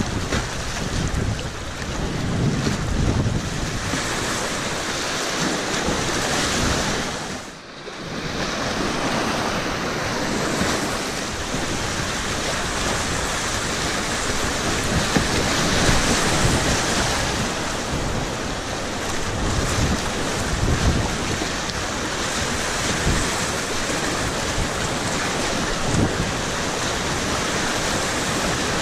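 Whitewater rapids rushing and splashing around a kayak, a loud steady wash of moving water close to the microphone, with wind noise on the microphone. The sound dips briefly about eight seconds in.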